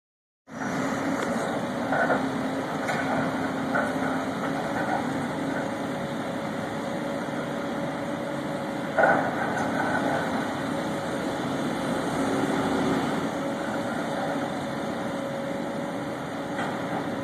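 Diesel engine of a heavy construction machine running steadily, with a few scattered knocks and clunks, the loudest about nine seconds in.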